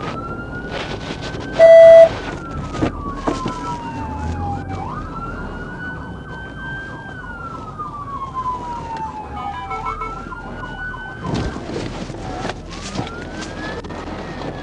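Police car sirens wailing in long sweeps that rise quickly and fall slowly, with a faster warble overlapping in places. A short, very loud steady tone sounds for about half a second about two seconds in.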